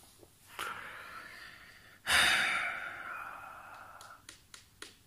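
A man's breath in, then a heavy sigh out about two seconds in that trails off slowly, followed by a few light clicks near the end.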